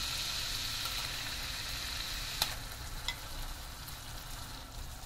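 Spice masala frying in butter and oil in a pan, a steady sizzle that slowly quietens as thick makhani gravy is spooned in. Two light clicks a little past two and three seconds in.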